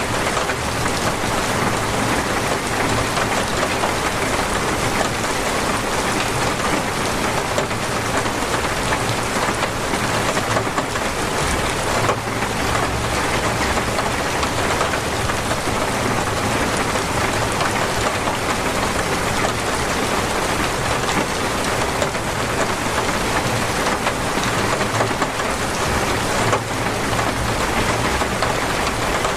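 Torrential rain falling steadily, a dense even hiss of rain with a few sharper drops standing out now and then.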